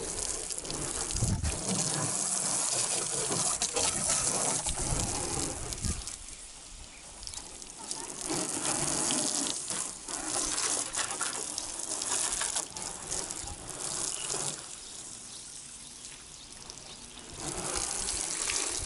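Water from a garden hose spraying onto a car's bodywork and splashing on the ground: a steady hissing gush that eases off twice as the jet moves.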